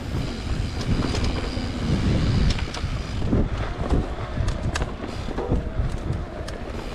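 Electric mountain bike ridden along a dirt trail: tyres rumbling over the ground, wind on the microphone, and the bike rattling with many scattered clicks and knocks.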